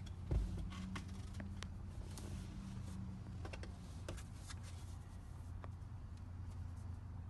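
Light clicks and rustling as hands clip a seat cover's S-hook onto its strap under a car seat, with a dull bump shortly after the start, over a steady low hum.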